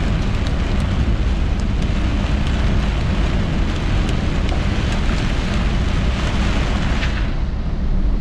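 Heavy rain beating on a car's roof and windshield, with scattered sharp ticks of strikes on the glass over a steady low road-and-vehicle rumble inside the cabin. The hiss of the rain eases about seven seconds in.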